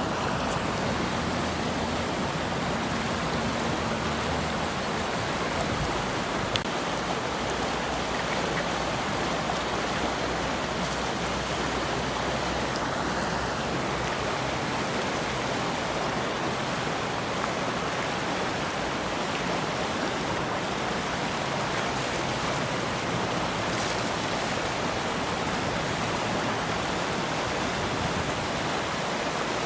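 Steady rushing of river water, an even noise with no pauses.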